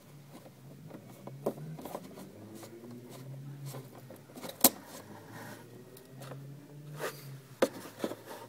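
Hands pressing a taped HID ballast into place against plastic motorcycle fairing: scattered clicks, taps and rubbing, with one sharp click about halfway through.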